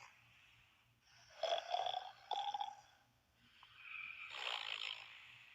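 Snoring sound effect: two long, rasping snores, the first about a second in and the second about four seconds in.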